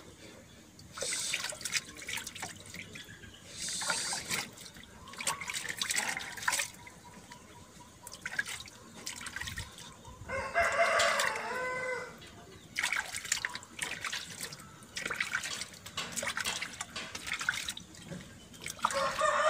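Water splashing and dripping in a plastic bucket as a chicken is dipped and rinsed in a lice-killing solution. A rooster crows once about ten seconds in.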